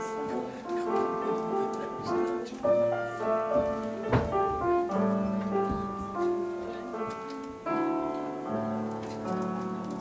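Grand piano played solo: a piece of held notes and chords, with a fuller chord struck near the end that then slowly fades.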